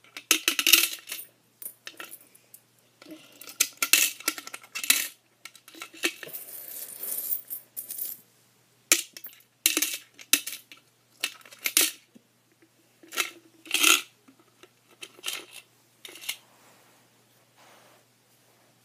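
Coins being dropped into a coin bank, clinking and clattering in irregular bursts, kind of loud, thinning out near the end.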